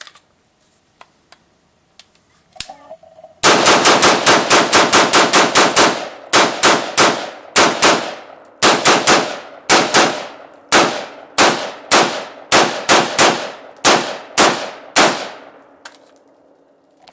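High Standard HSA-15 AR-15 carbine in 5.56 mm firing semi-automatically in a magazine dump. A few light clicks come first, then a fast string of about twenty shots in two and a half seconds, followed by steadier shots about three a second that stop near the end. The rifle is new and unlubricated and cycles every round.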